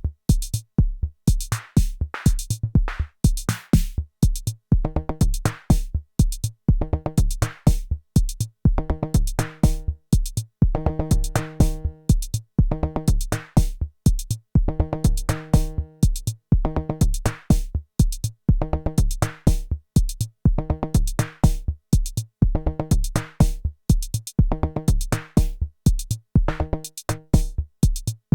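Arturia DrumBrute Impact analog drum machine playing a steady sequenced beat: deep kick drum, fast hi-hat ticks and snare hits, with short pitched tom or synth-percussion notes repeating through the pattern.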